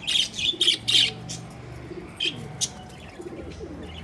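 Budgerigars chirping in quick short bursts, thickest in the first second and a half and then a few scattered chirps, with low pigeon cooing underneath.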